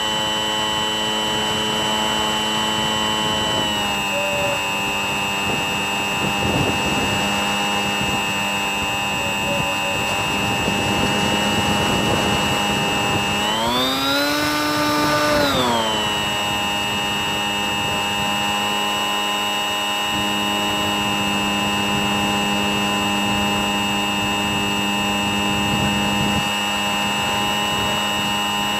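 Bixler 3 RC plane's electric brushless motor and propeller whining steadily in flight, with wind noise over the airframe. The pitch drops slightly about four seconds in, then rises for about two seconds in the middle as the throttle is opened, before settling back.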